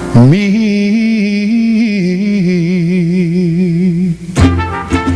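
A singer slides up into the song's final long note and holds it with a steady vibrato for about four seconds. The voice then stops and the band's closing instrumental, with drum hits and brass, comes in.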